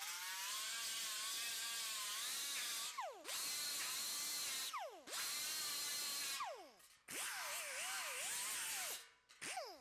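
Small right-angle grinder with a roll-lock disc grinding down tack welds on a steel fender flange. It runs in four short bursts and a brief fifth, each a steady high whine that falls in pitch as the motor spins down between passes. The pitch wavers under load during the fourth burst.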